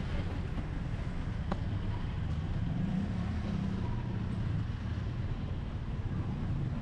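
Road traffic with motorbikes and cars passing close by, a steady low engine rumble. A single brief click about a second and a half in.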